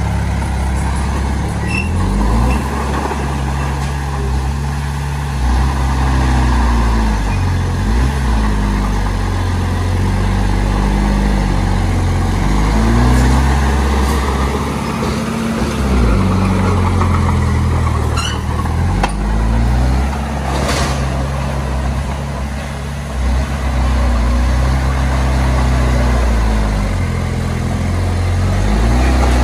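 Heavy diesel earthmoving engine running under working load, its pitch rising and falling every second or two as the load changes. A few sharp knocks come about two-thirds of the way through.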